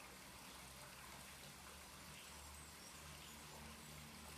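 Near silence: a faint steady hiss with a low rumble that comes and goes.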